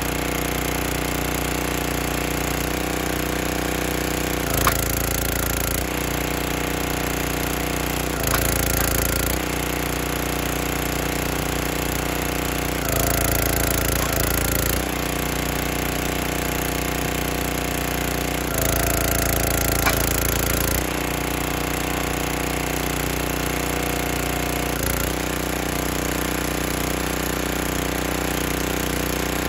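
Small gas engine of a 32-ton Performance Pro log splitter running steadily, getting louder about four times for a second or two as the hydraulic ram drives oak rounds through the wedge. Sharp cracks of the wood splitting open come a few times.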